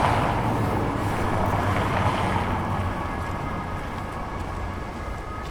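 City square ambience: a dense, steady wash of crowd and traffic noise with a low hum underneath, loudest at the start and easing off gradually.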